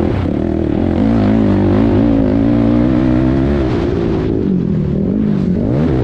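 Race quad's engine running hard on a dirt track, heard from a camera mounted on the quad. Its pitch holds fairly steady, falls away as the throttle is rolled off about four seconds in, then rises again near the end.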